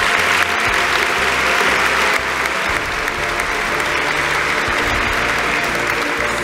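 Large audience applauding over background music, the clapping tapering off toward the end.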